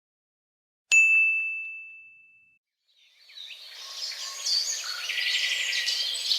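A single high, bell-like ding, struck once about a second in and fading out over a second and a half. About three seconds in, birds begin chirping and twittering, many at once.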